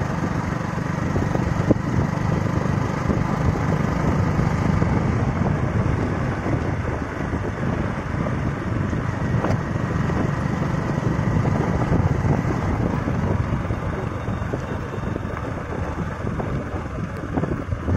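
Motorcycle running steadily at cruising speed along a wet road, with a low, even rumble of engine, wind and tyre noise.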